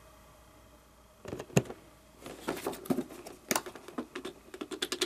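Cardboard Funko Pop box and its packaging being handled and opened: scattered light clicks and rustles starting about a second in, with a few sharper snaps.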